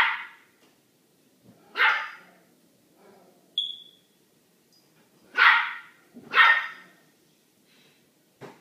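Small white dog barking at a larger dog on the other side of a closed door: four loud, separate barks, with a brief high-pitched note between the second and third and a faint bark near the end.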